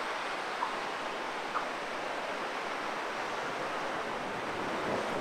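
Ocean surf washing up on a beach: a steady hiss of small breaking waves and foam running over wet sand.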